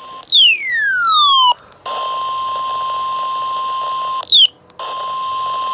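Emergency alert tones: a loud falling electronic sweep, then a steady high beep-like tone for about two seconds. About four seconds in, a second short falling sweep cuts in, and the steady tone resumes.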